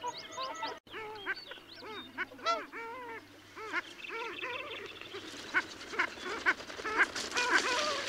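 Long-tailed duck drakes calling in courtship display: many repeated, overlapping nasal yodelling calls from several birds, each arching up and down in pitch. A hiss builds behind the calls through the second half.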